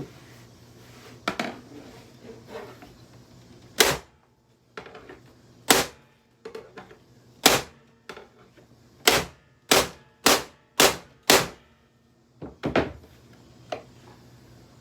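Sharp, hard blows struck on a Hoover vacuum cleaner as it is smashed apart, about ten strikes at irregular intervals with a quick run of five in the second half.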